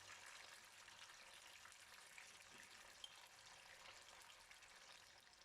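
Chicken breast pieces coated in yogurt and cornflour sizzling faintly in hot oil in a frying pan: a steady, quiet crackle with a few small pops.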